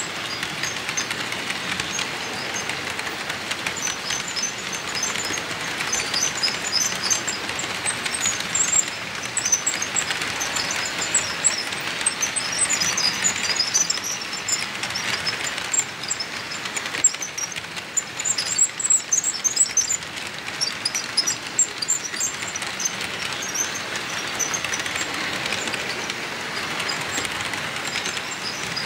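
HO scale model freight cars rolling past on the track: a steady metallic rolling hiss from the wheels, with a scatter of small high-pitched ticks and squeaks that are thickest in the middle.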